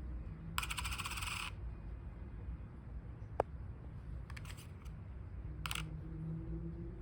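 A 1914 penny dropped onto a hard surface in a sound test of its metal, chattering rapidly as it bounces and settles about half a second in, followed by a few separate sharp clicks of the coin being picked up and set down.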